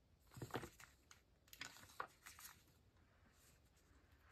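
Faint rustling of a paper instruction booklet being handled and its pages turned, in a few short bursts mostly in the first half.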